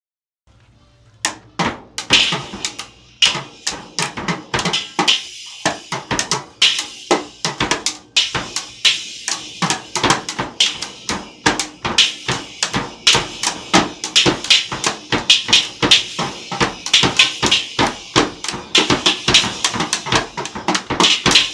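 Toy drum kit banged with sticks by a small child: fast, uneven hits on the small plastic-headed drums and toy cymbal, several a second with no steady beat, starting about a second in.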